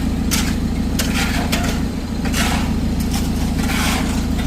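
A concrete mixer's engine running steadily, with shovels scraping through concrete in irregular strokes about once or twice a second.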